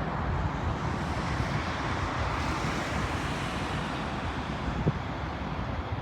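Steady outdoor rushing noise of wind on the microphone and traffic, with a faint knock near the end.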